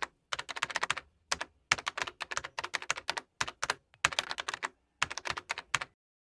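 Fast keyboard typing: bursts of rapid clicking keystrokes with short pauses between them, stopping abruptly about six seconds in.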